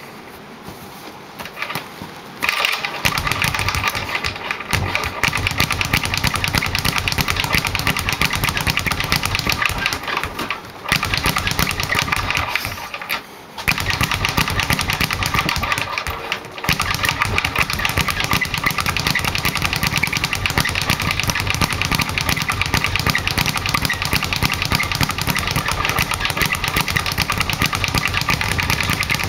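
Title 5x8 speed bag being punched in a fast, continuous rhythm, rattling against the wooden rebound board. It starts about two seconds in, with three short breaks partway through.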